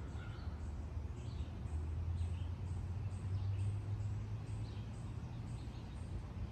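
Outdoor ambience: faint bird chirps now and then over a steady low rumble.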